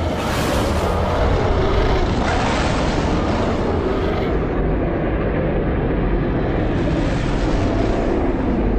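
A loud, steady rumbling noise with no clear tones, strongest in the low end. The higher hiss in it thins out about halfway through.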